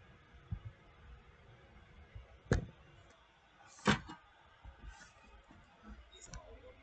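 A few short, light knocks in a quiet room, the two loudest about two and a half and four seconds in, a second and a half apart.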